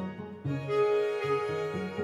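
Bass clarinet and string quartet playing chamber music. There is a brief dip about half a second in, then held notes over a low line that moves in steps.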